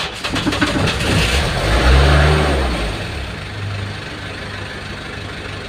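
Kia Bongo's 3.0 diesel engine starting up, revving briefly about two seconds in, then settling into a steady idle.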